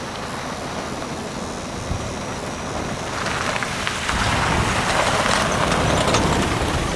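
A pickup truck driving slowly past on a dirt track, its engine running and its tyres crunching over the dirt and gravel. The crunching grows louder from about three seconds in as the truck comes close.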